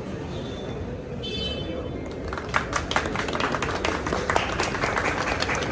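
Low murmur of a crowded gathering. About two seconds in, an irregular run of sharp clicks starts and goes on, over rising crowd noise.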